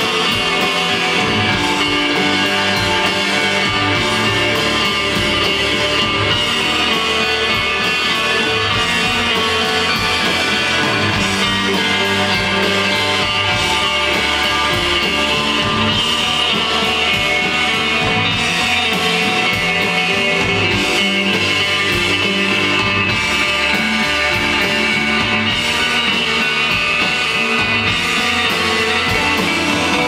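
Live instrumental desert rock band playing steadily and loudly: electric guitar, electric bass and drum kit.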